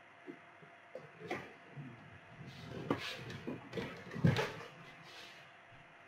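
Scattered light knocks and rustles of someone moving and handling things at a workbench, the loudest about four seconds in, over a faint steady hum.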